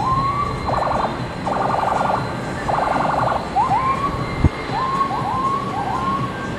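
Boeing 747-400 taxiing, its four turbofan engines giving a steady low rumble. Over it come repeated short rising whistle-like calls and three rattling trills in the first half. A sharp click falls about two-thirds of the way through.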